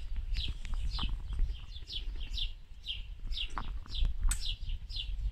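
A small bird chirping over and over, short high notes that slide down, about three a second, over a low rumble.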